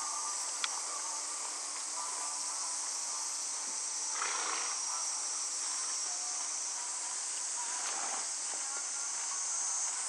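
A steady, high-pitched chorus of insects buzzing. Two short rushing noises stand out, about four and eight seconds in.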